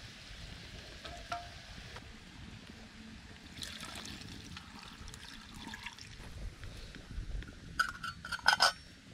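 Liquid trickling, then a quick run of sharp clinks with a short ringing tone near the end.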